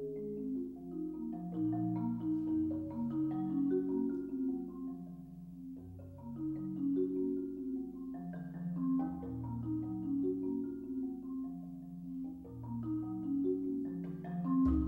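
Concert marimba played with mallets in a flowing passage of many overlapping notes, with low notes held for a second or more beneath quicker higher ones.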